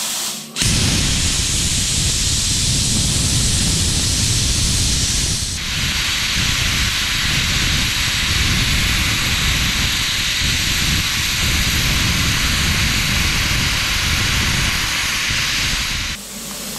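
Thermal Dynamics Cutmaster 42 plasma cutter at about 30 amps gouging a weld out of steel plate: after a soft air hiss, the arc catches about half a second in and runs with a loud, steady hiss over a low rumble. Near the end the arc cuts out, leaving a softer air hiss.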